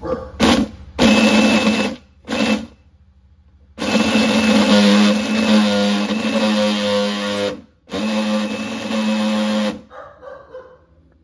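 Small electric blender puréeing a chicken and beef porridge in pulses: three short bursts in the first three seconds, then two longer runs of about four and two seconds.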